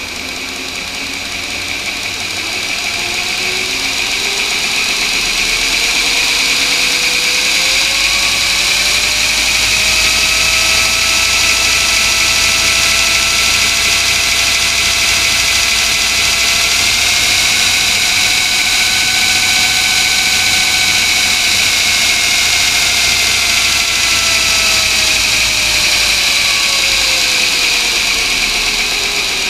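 Vevor 2x72 belt grinder running on its variable-speed drive: the motor and belt whine rises in pitch as it speeds up over the first several seconds, holds steady with a small further rise midway, then drops as it slows down near the end, over a steady hiss from the moving belt.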